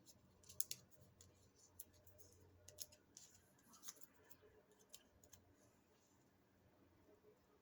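Faint, scattered clicks and light taps of cardstock pieces and craft supplies being handled on a work table, with a close pair of clicks about half a second in; otherwise near silence.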